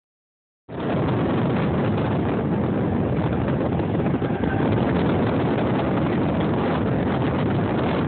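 Steady wind noise on the microphone over the rush of water and running noise of a sport-fishing boat. It cuts in abruptly just under a second in.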